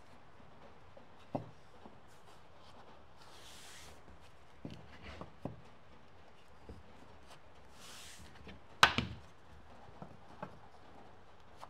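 Scattered knocks and taps of engineered wood flooring pieces being set and tapped into place, about eight in all, the loudest about nine seconds in. A soft hiss comes and goes about every four seconds.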